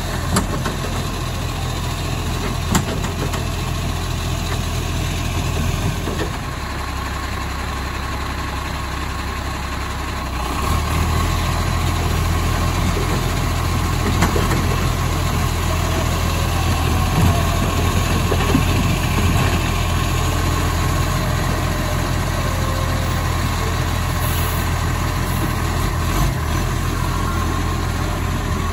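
Side-loader garbage truck's diesel engine idling, rising to a higher, louder run about ten seconds in while the hydraulic lifting arm raises and tips a wheelie bin. A few sharp knocks sound now and then.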